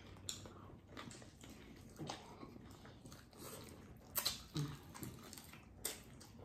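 Faint mouth sounds of people eating chicken wings: chewing, with scattered short smacks and clicks as meat is pulled off the bones, a few louder smacks a little past the middle.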